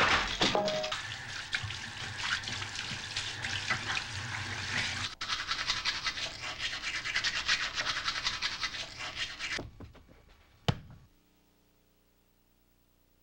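A toothbrush scrubbing fast back and forth in a boy's mouth, a dense scratchy brushing that then stops, followed by a single sharp click.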